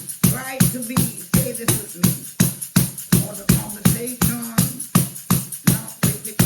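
Music with a fast, steady drum beat, about four strokes a second, and a melody line over it.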